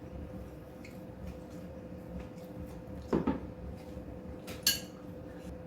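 Eating utensils clinking against dishes twice, once about three seconds in and again a little before the end with a short ringing clink, over a faint steady hum.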